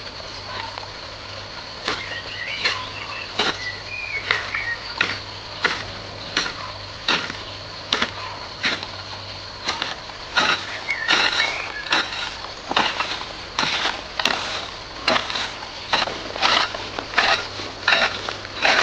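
Repeated sharp knocks, about one and a half a second and quickening to about two a second in the second half: a hand tool striking something.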